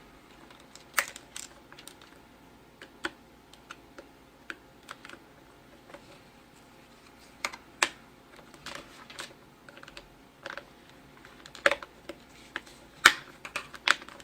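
Irregular sharp plastic clicks and taps from a Roku remote's shell being squeezed and worked to snap its two halves shut, with the clips not yet seating. The clicks grow louder and more frequent near the end.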